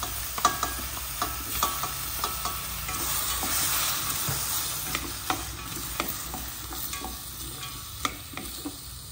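Tomato wedges, pineapple and king oyster mushrooms sizzling in oil in a stainless steel pot, with sharp clinks and scrapes as a metal tray and wooden chopsticks knock against the pot while the food is tipped in and stirred. A few ringing metal clinks come in the first couple of seconds, and the sizzle eases off somewhat near the end.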